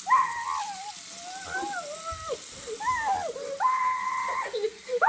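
A child's high-pitched wordless voice, wailing and squealing in long gliding tones, then holding one steady note for about a second near the end.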